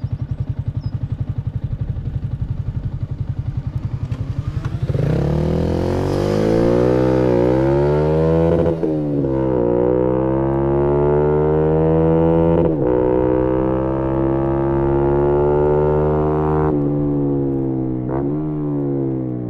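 Yamaha MT-125's single-cylinder four-stroke engine through a GPR aftermarket exhaust: a steady low pulsing for about five seconds, then revving hard under acceleration, the pitch climbing in steps with short breaks at gear changes about nine and thirteen seconds in. It eases off near the end.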